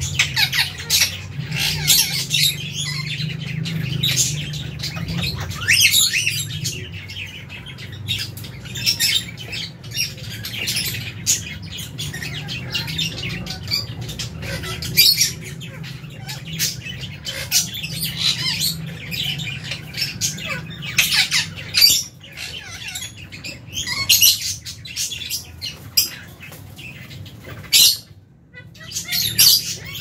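A flock of lovebirds chirping and squawking: a dense chatter of short, shrill calls, many overlapping, with a brief lull near the end. A steady low hum runs underneath.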